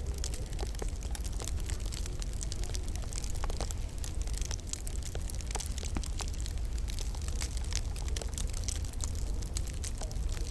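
Wood fire in a log burner crackling, with frequent irregular small pops and snaps over a steady low rumble.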